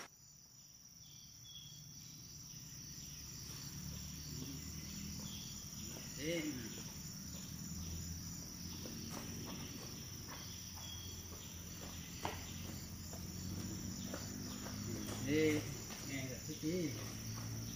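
Insects trilling steadily in one continuous high-pitched drone.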